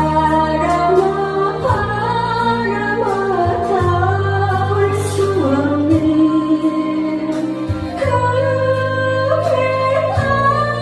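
A woman singing a trot song into a microphone over loud band accompaniment, with a sustained bass line and a regular drum beat under her gliding, held vocal line.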